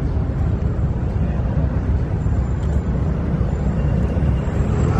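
Steady low rumble of city traffic outdoors, with no distinct events.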